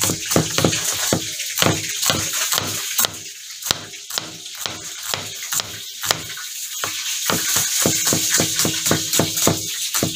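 Kitchen knife slicing a red onion on a plastic cutting board: a run of sharp knocks, about three to four cuts a second, with a short lull a few seconds in and faster cutting near the end.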